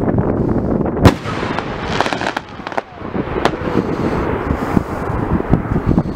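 Fireworks display: aerial shells bursting over a continuous crackle of many small pops, with two loud bangs, about a second in and about three and a half seconds in.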